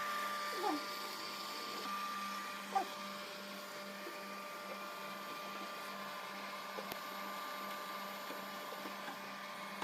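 A steady machine hum holding a constant tone over a hiss, with a couple of faint short chirps in the first few seconds.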